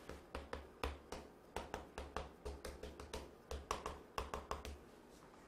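Chalk on a chalkboard as an equation is written: a quick run of short taps and scratches that stops near the end.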